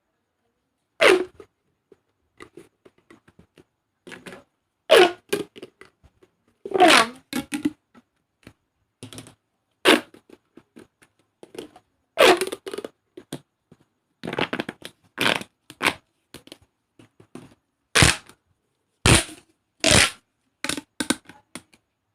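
Plastic pop tubes being stretched and squashed, giving crunchy, crackling pops in irregular bursts, about a dozen loud ones with fainter crackles between.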